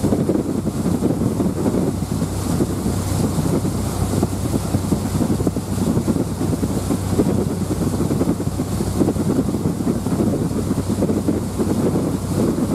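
Wind buffeting the microphone on the deck of a moving JR Miyajima ferry, over the ferry's steady low engine drone and the rush of water from its wake along the hull.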